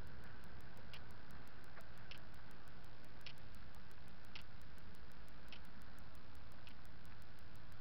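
Walking with a body-worn action camera: a light tick about once a second, keeping time with the stride, over a steady low rumble of the rig and clothing rubbing against the microphone.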